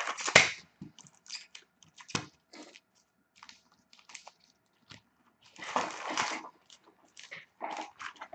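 Foil hockey card packs crinkling and clacking as they are lifted out of a cardboard box and stacked. There is a series of short rustles and taps, with longer crinkling bursts right at the start and again about six seconds in.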